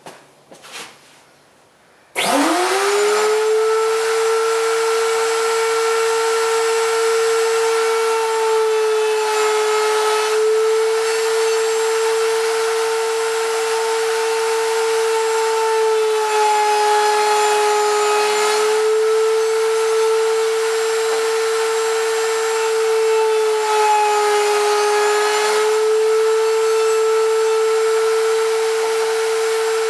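Wood router mounted under a homemade router table switched on about two seconds in, spinning up quickly to a steady high whine. Its pitch sags slightly a few times as a strip of wood is fed into the bit and cut.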